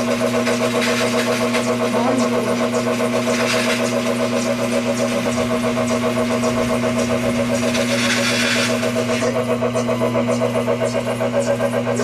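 Glass bevelling machine's horizontal wet wheel running with a steady motor hum and a slight pulsing. A gritty hiss swells about a second in, again a few seconds later, and longest about eight seconds in, as the sheet glass edge is worked against the wheel.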